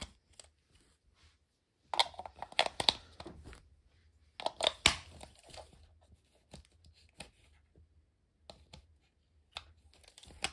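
Sharp plastic clicks and rattles from batteries and the battery compartment of a plastic RC transmitter being handled, in two brief flurries a couple of seconds apart, then a few scattered clicks.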